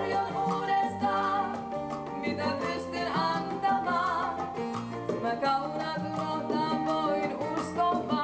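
Live salsa band playing, with congas and timbales keeping the rhythm over a stepping bass line.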